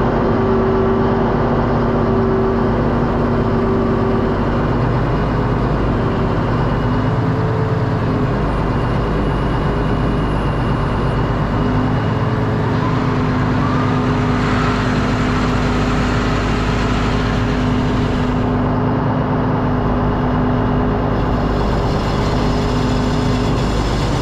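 Truck engine running steadily while driving, a continuous drone with small shifts in pitch.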